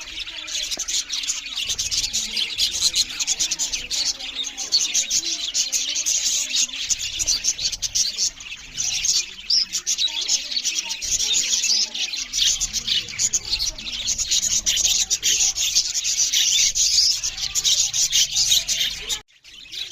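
A group of budgerigars chattering and chirping loudly and without pause, a dense high-pitched warble. It cuts out abruptly for a moment just before the end.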